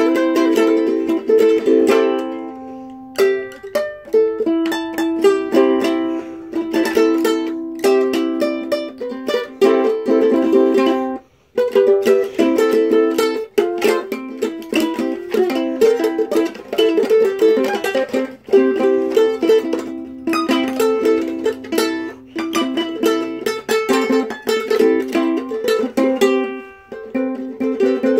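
Ukulele strummed in chords, the strums coming in quick runs, with one short break about eleven seconds in.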